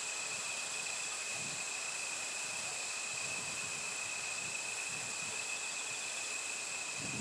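Steady outdoor insect chorus: a continuous high-pitched chirring in two unbroken high tones over a background hiss, with faint low rumbles now and then.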